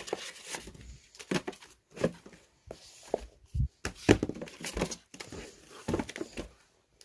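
Gift packaging being handled: irregular rustling and crinkling, with a few soft knocks as items are taken out.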